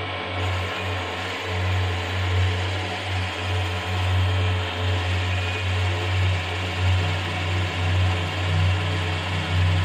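Milling machine running as a twist drill bores into a metal cylinder block: a steady machine hum with a low drone that swells and fades.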